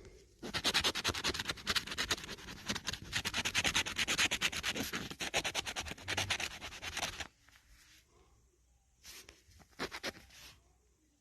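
Scratch-off lottery ticket being scratched: a long run of rapid back-and-forth scraping strokes, then it stops about two-thirds through, with two short scrapes near the end.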